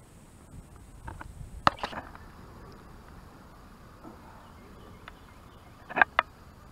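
Spinning rod and reel being handled: a few sharp clicks and knocks, a cluster about a second or two in and a quick pair near the end, over a quiet outdoor background.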